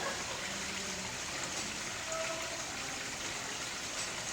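Water running steadily, like a stream or trickle.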